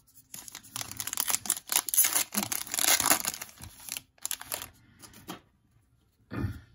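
Foil trading-card pack being torn open and its wrapper crinkled: a dense crackling that runs for about four seconds. A few light clicks follow, and a short soft thump comes near the end.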